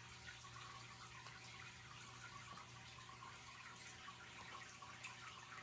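Faint trickling and small drips of water in a turtle tank, over a low steady hum.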